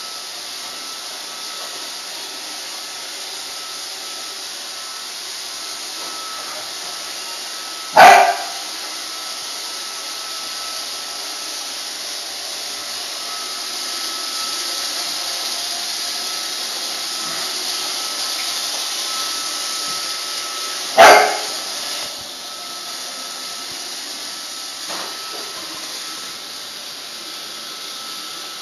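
Roomba robot vacuum running steadily while a pit bull barks loudly twice, single barks about thirteen seconds apart.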